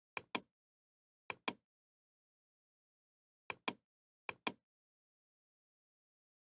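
Computer mouse button clicked in four quick pairs of sharp clicks, with dead silence between them.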